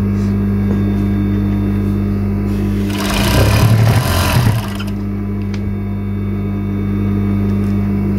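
Industrial overlock machine (serger) humming steadily from its motor, with a louder burst of stitching through the knit fabric about three seconds in lasting over a second.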